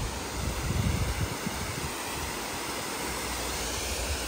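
Steady, even rush of a waterfall and river rapids, with low wind buffets on the microphone about a second in.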